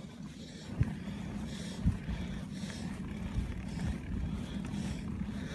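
Wind rumbling on a handheld phone microphone while cycling. A soft hiss repeats about once a second, and a few sharp knocks come from handling the phone.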